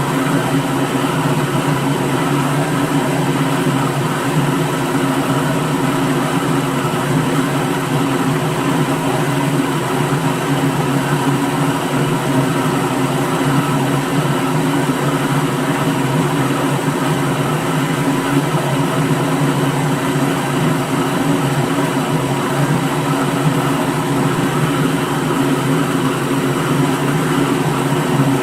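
Electric kitchen blender motor running steadily: a dense whir with a low hum that holds at one speed throughout.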